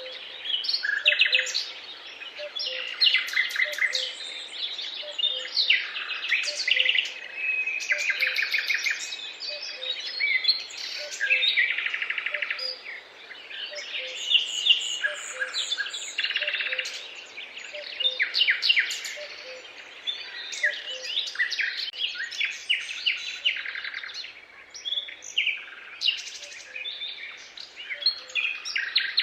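Several songbirds singing at once, a dense chorus of overlapping chirps, trills and quick note series. A faint lower note repeats steadily underneath.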